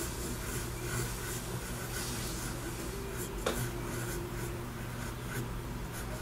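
Pencil scratching on paper in short strokes while sketching small round toe shapes, with one sharp tap about three and a half seconds in. A low steady hum sits underneath.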